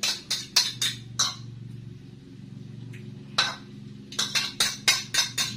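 A metal utensil clinking rapidly against a small bowl as eggs are beaten. The clinks come in two quick runs, about four to six a second, with a pause of about two seconds between them.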